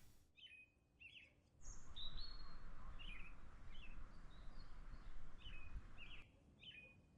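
Small songbirds chirping: short, high chirps repeated every second or so throughout, with a faint background hiss in the middle of the stretch.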